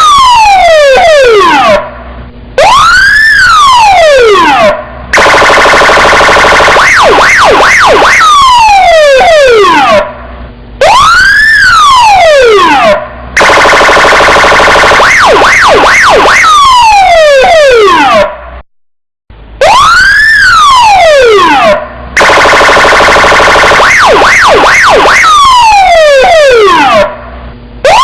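Electronic police siren cycling through its tones in a loop that repeats about every eight and a half seconds: a steady buzzing tone, a few quick yelps, a falling glide, then a rising and falling wail, with short breaks between the parts. Loud.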